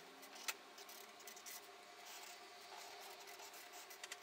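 Felt-tip marker drawing on paper, a faint scratching as lines are traced, with one sharp click about half a second in.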